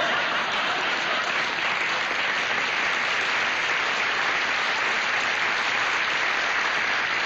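Studio audience applauding a comedian's punchline, a steady, dense clapping.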